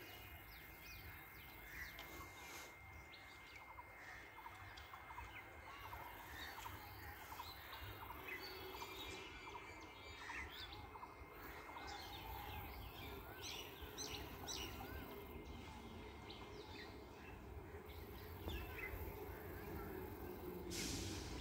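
Small birds chirping and calling, many short notes overlapping. A low rumble grows in near the end as an approaching electric multiple-unit train draws nearer.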